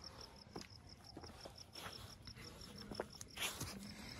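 Faint, steady chirping of a cricket, a high chirp about five times a second, with a few soft knocks now and then.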